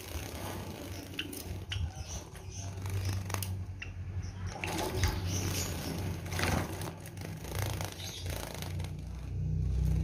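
Java sparrows bathing in a small plastic water bowl: irregular splashing and wing-fluttering in the water with scattered sharp clicks, over a steady low hum.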